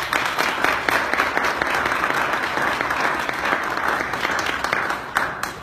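Audience applauding: a round of many hands clapping that thins out near the end.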